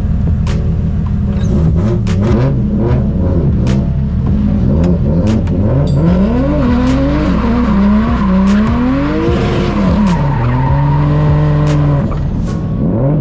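Drift car engine revving up and down over and over, its pitch swinging as the throttle is worked through a drift run, with a hiss of tyre and wind noise in the middle. Near the end the revs are held steady, then drop; occasional sharp clicks run through.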